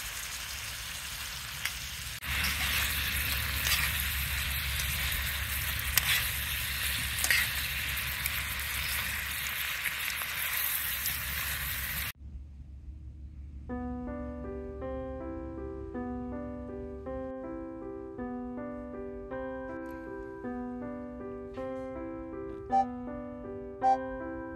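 Meat frying and sizzling in its sauce in a skillet, with small crackles, stopping suddenly about halfway through. Background music follows: a steady run of bright, evenly timed notes.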